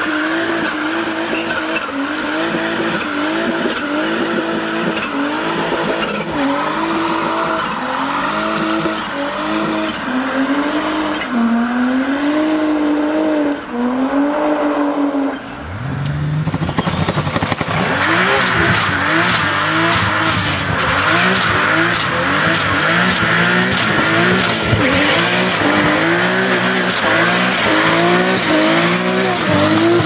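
Turbocharged cars doing burnouts, first a Volvo 740: the engine is held high in the revs, its pitch climbing and dropping back about once a second, with a high turbo whistle following the revs and tyres squealing. About halfway through the sound cuts to a second, louder car doing the same.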